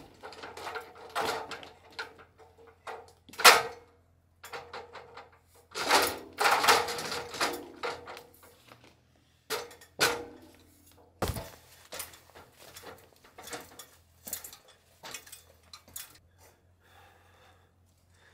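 Aluminium extension ladder being slid up and set against a stone wall: repeated metallic clanks and rattles as the sections slide and the rungs knock, then lighter taps near the end as it is climbed.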